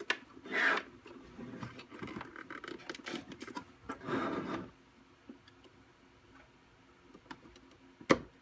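Plastic parts rubbing and scraping as a replacement peel-and-present assembly is worked into place on a Zebra label printer, in short bouts with a quiet stretch, then a sharp click near the end.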